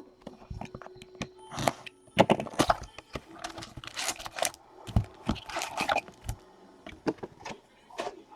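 Hockey card box packaging being handled and torn open: an irregular run of sharp cracks and tearing rustles, loudest about two seconds in and again around the middle.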